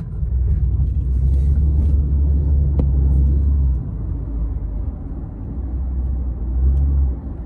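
Car running on the road, heard from inside the taxi's cabin as a low rumble that is loudest for the first few seconds, eases, then swells again near the end.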